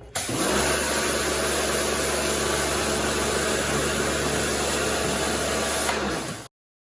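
Kärcher electric pressure washer running: a steady motor hum under the loud hiss of the high-pressure water spray, starting abruptly and cutting off suddenly near the end.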